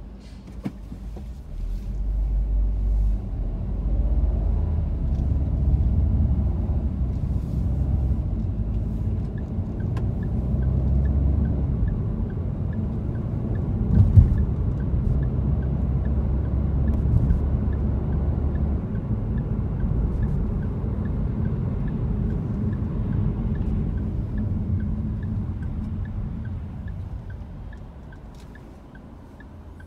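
Low engine and road rumble heard from inside a moving car. It swells as the car pulls away about two seconds in, runs steadily with one sharp thump about halfway through, and dies down near the end as the car slows. A faint regular ticking runs through the second half.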